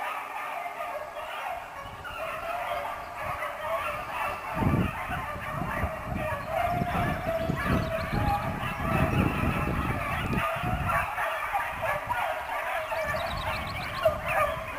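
A pack of beagles barking and crying together, many voices overlapping without a break, as the hounds are cast for a field trial. A low rumbling on the microphone joins in from about four and a half seconds in.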